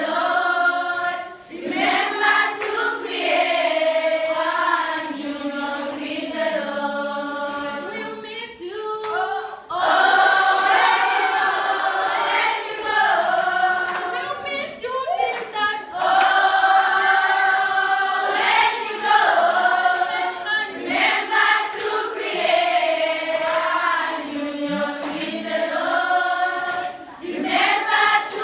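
A choir of girls singing a farewell song together, in phrases with short pauses between them.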